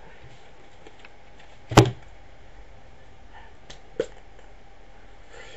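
A sharp knock a little under two seconds in, then a lighter knock about four seconds in, over a steady low hiss.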